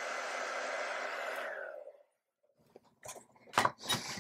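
Hair dryer blowing steadily to dry fresh acrylic paint, switched off about one and a half seconds in and winding down. A few light clicks and knocks of handling follow near the end.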